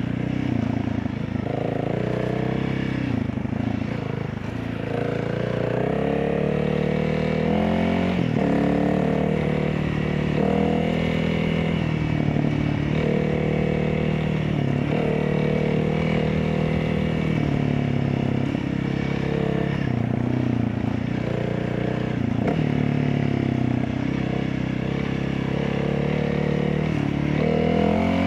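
Honda CRF300L's single-cylinder engine, breathing through an opened airbox and a LeoVince exhaust on an ECU tune, running with its engine note repeatedly rising and falling.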